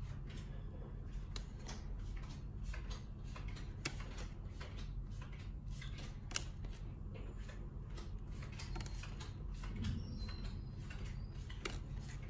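Magic: The Gathering proxy cards being handled one by one: cards sliding against each other and set down on a playmat, making many small irregular clicks and rustles, two of them sharper, over a steady low hum.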